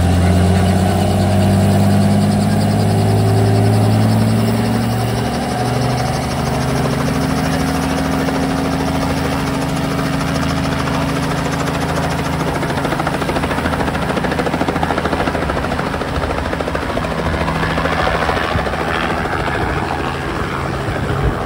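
Light helicopter running on the pad with its engine and main rotor turning, a steady low engine drone under the rotor. The sound grows fuller near the end as it lifts off into a hover.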